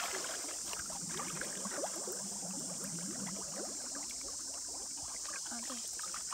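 Hands working inside a bamboo plunge-basket trap pressed into shallow muddy water: small sloshes and gurgling, bubbling water, over a steady high hiss.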